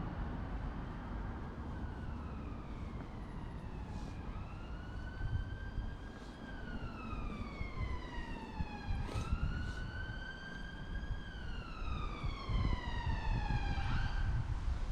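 Emergency vehicle siren wailing, its pitch sliding slowly up and down in long cycles over the low rumble of street traffic, then cutting off shortly before the end.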